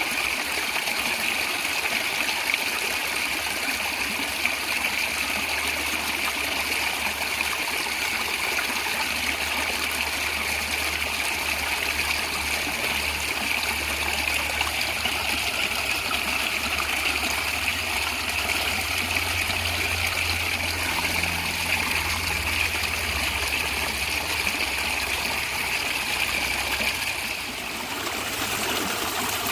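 Natural water running and gurgling steadily, like a stream. There is a brief dip in level about two seconds before the end.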